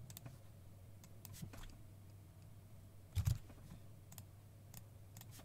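A few scattered computer keyboard keystrokes and mouse clicks, with a louder cluster of key presses about three seconds in, over a faint steady low hum.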